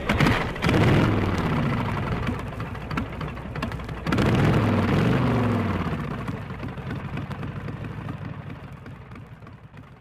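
Background soundtrack: a dense, noisy track with a steady low drone and falling swooping sweeps, slowly fading away over the last several seconds.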